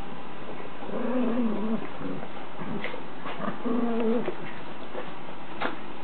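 Two small dogs play-fighting, with two short, low-pitched growling calls, one about a second in and one about four seconds in, and a few sharp ticks between them.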